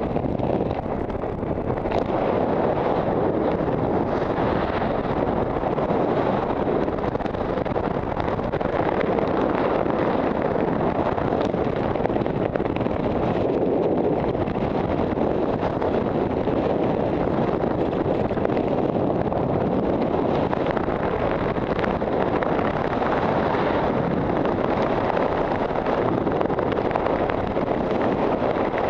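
Steady wind rushing over a skydiver's camera microphone during descent under an open parachute canopy, an even, unbroken rush of noise with no change in level.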